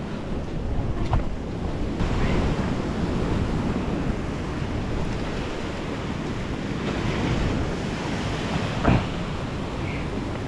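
Ocean surf surging and breaking against the rocks, with wind buffeting the microphone. A single sharp thump stands out near the end.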